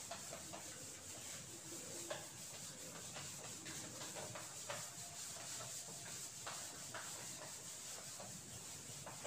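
Whiteboard eraser wiping across a whiteboard in repeated strokes, a faint rubbing.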